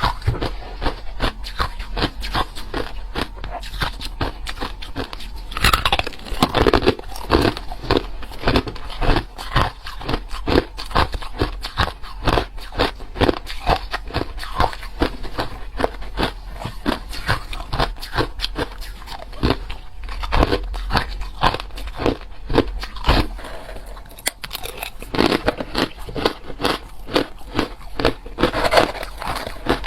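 Hard and crushed ice being bitten and chewed close to the microphone: rapid, loud crunches, several a second, with louder bursts of crunching as fresh bites are taken.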